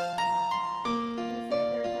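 Background music on a keyboard instrument: a simple melody of held notes, changing about three times a second.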